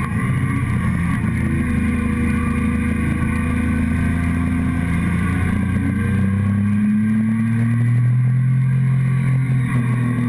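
Motorcycle engine and exhaust running at speed, heard close up from the fuel tank, with wind rushing over the bike. The engine note shifts about seven seconds in and then climbs a little.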